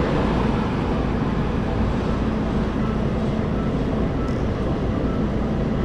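Honda motorcycle being ridden at a steady speed: the engine running steadily under a heavy rush of wind on the microphone.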